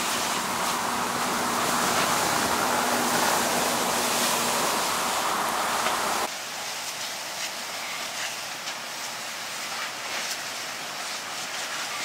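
Steady rushing hiss of a burning truck being hosed down, with a faint steady hum under it for the first few seconds. About six seconds in the sound cuts to a quieter hiss with light scattered crackles.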